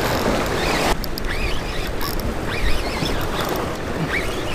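Surf washing against jetty rocks with wind on the microphone, a steady rushing noise, with a few short high squeaks over it.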